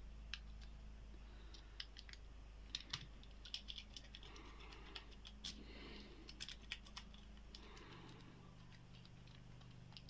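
Faint, irregular metallic clicks and ticks from a steel hook pick being rocked against the pins inside a Stahlex bike lock's cylinder under tension, without the lock opening.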